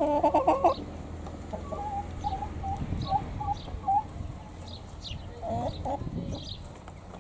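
Domestic hens clucking: a loud call right at the start, then a run of short clucks, and another call about two-thirds of the way through.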